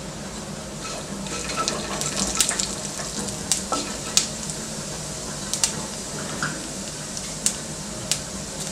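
Mustard and cumin seeds sizzling in hot oil in a stainless steel pan, with scattered sharp pops as the mustard seeds splutter, while a wooden spatula stirs them.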